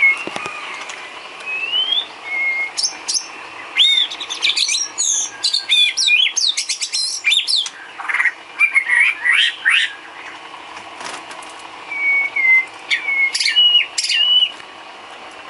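White-rumped shama singing: a long, varied song of clear whistles, rising sweeps and fast chattering runs, densest in the middle, ending with a few short whistled phrases.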